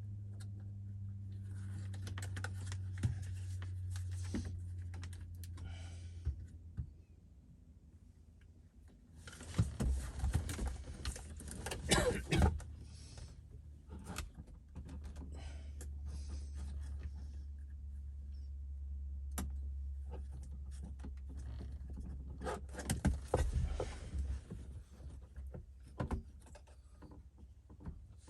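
Plastic trim and radio parts of a BMW 328i's centre console being handled and pried out, with scattered clicks and rattles, over a steady low hum.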